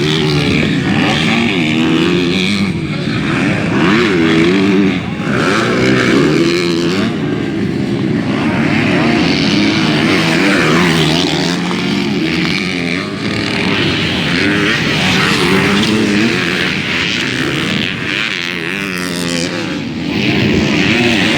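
Motocross motorcycle engines running hard, their pitch repeatedly rising and falling as the riders rev up and back off.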